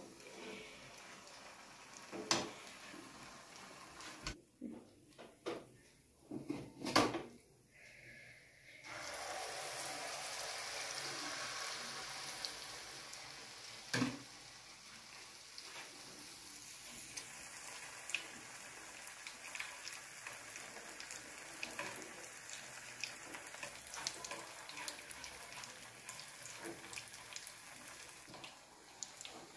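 Sel roti batter frying in a wok of hot oil: a steady hiss of sizzling that jumps up sharply about a third of the way in and stays even after, with a few knocks of utensils and a wooden stick against the pan.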